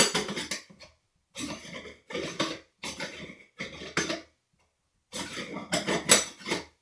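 Chrome cap of a Sloan Royal flush valve being screwed back on by hand: a series of short metallic scrapes and clinks as the threads turn, with a brief pause about four seconds in.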